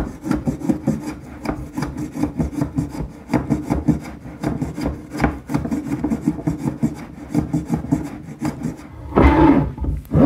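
Sandpaper on a hand block being rubbed quickly back and forth across an oak tabletop, hand-sanding away glue stain in a steady run of strokes. About nine seconds in, a louder scrape and knock as the board is lifted and tipped up on edge.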